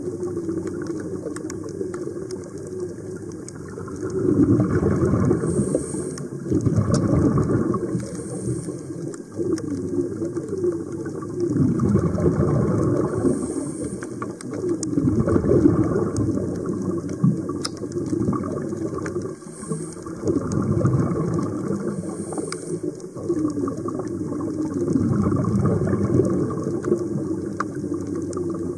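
Underwater sound through a camera housing: a scuba diver's regulator breathing, with exhaled bubbles rumbling out in swells every four seconds or so and short hisses of inhalation between them, over a steady crackle of clicks.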